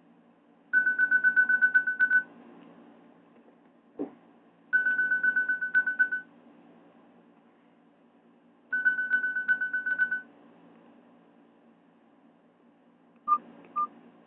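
A Nokia E65 ringtone playing from a Nokia 216 phone's speaker: a fast-pulsing electronic trill on one high tone, in three bursts of about a second and a half, repeating every four seconds or so. Two short, lower beeps come near the end.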